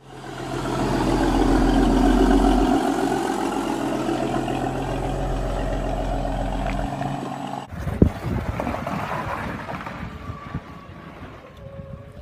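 Engine of a miniature semi-truck running steadily as it drives along, loud and even for most of the first eight seconds, then cutting off suddenly. A sharp knock follows, then a quieter small engine with wind noise.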